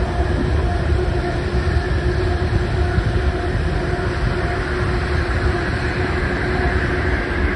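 Freight train of open-topped hopper wagons rolling past below, a steady deep rumble of wheels on rail with a faint steady hum over it.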